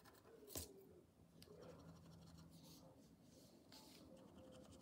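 Near silence, with a fingertip and nail lightly tapping and sliding over a scratch card; one faint tap about half a second in.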